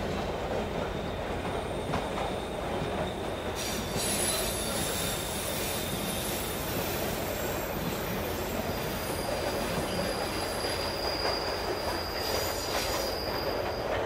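Train running on rails: a steady rumble with high, thin squealing tones from the wheels held over it, the squeal shifting in pitch a few times.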